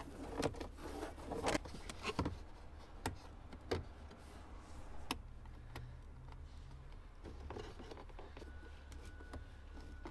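Small plastic clicks and knocks as a tweeter in its plastic mounting bracket is pushed and seated into the dash tweeter opening. They come as a handful of separate sharp clicks in the first five seconds, over a steady low hum.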